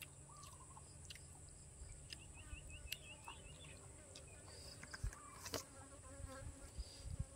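Faint outdoor insect sounds: a steady high-pitched insect hum, with a fly buzzing close by in the second half. A quick run of short chirps comes in the middle, and there are a few soft thumps from food being handled.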